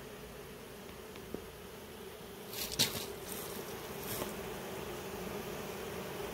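Honey bees buzzing in a steady hum as they crowd the hive entrance and landing board, growing slightly louder in the second half. A brief rustle about halfway through is the loudest moment.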